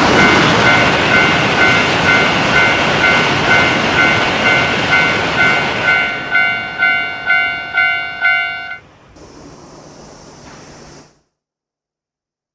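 Japanese railroad crossing warning bell clanging steadily, about two and a half strokes a second, while a train rushes past. The train noise fades about six seconds in, and the bell stops near nine seconds, leaving a faint hiss that cuts to silence near the end.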